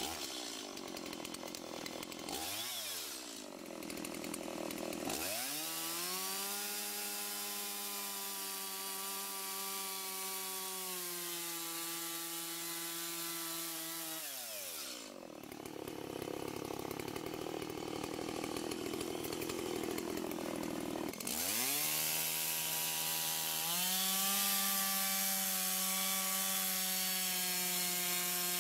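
Stihl two-stroke chainsaw cutting lengthwise down the side of a maple log: it revs up to full throttle and holds there through the cut, drops back to idle about fifteen seconds in, then revs up and cuts again from about twenty-one seconds in.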